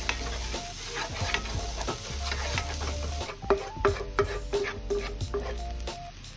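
Wooden spatula stirring and scraping chopped onions in a non-stick frying pan, with many quick taps against the pan over the sizzle of the oil. The onions have been fried down to amber, the point where the frying is finished.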